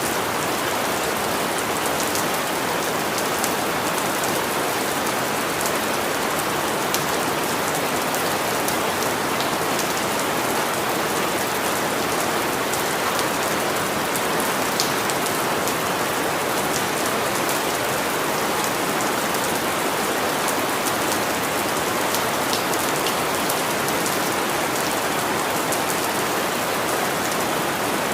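Steady rain falling, a dense even hiss of drops, with many small drop ticks on a surface.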